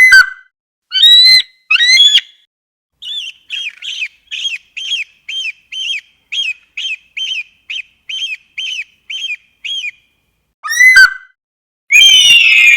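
Eagle calling: three sharp cries, then a long run of quick, even piping notes, about two and a half a second. Near the end, a loud cry and a long scream that falls in pitch.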